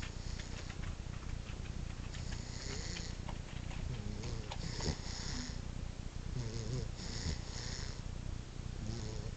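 Boxer puppy snoring in its sleep, with a raspy breath about every two seconds.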